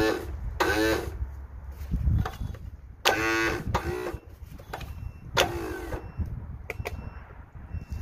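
Electric starter cranking a 20 hp Kohler Courage engine in short tries that give several brief high whines, the last falling in pitch. The engine does not start.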